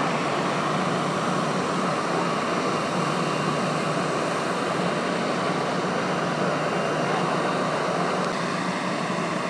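Airbus A321 jet engines running at taxi idle: a steady, even rumble and rush with a faint high whine.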